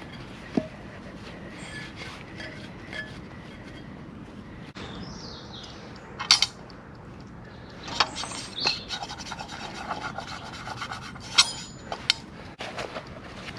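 Handling noises: rubbing and scraping, with a sharp knock under a second in, a few more knocks, and a denser stretch of scraping in the second half.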